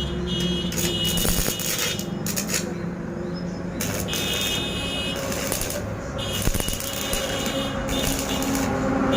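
Electric arc welding: a steady crackling hiss over a low hum from the welding machine, with a high-pitched tone that comes and goes several times.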